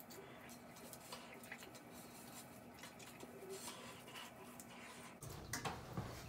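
Faint wet rubbing and small clicks of hands working a foaming face cleanser over the skin. About five seconds in, a steady low hum starts.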